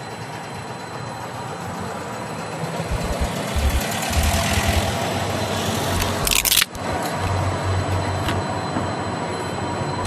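Street traffic noise, with a low rumble that grows as a vehicle goes by, and a brief sharp noise about six and a half seconds in.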